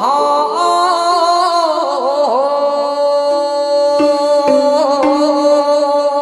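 Gyeonggi folk-style singing: a voice holds long notes with wide vibrato and slides between pitches. It is accompanied by a gayageum, whose plucked notes sound about three times near the end.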